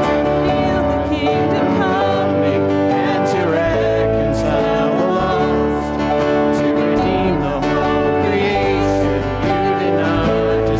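Music during a church service: strummed acoustic guitar with singing.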